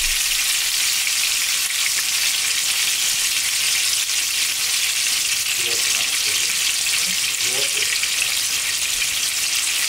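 Mini ground-beef seekh kebabs frying in a pan, a steady sizzle.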